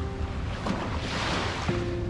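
Background music with held notes, over small waves washing onto a sandy shore.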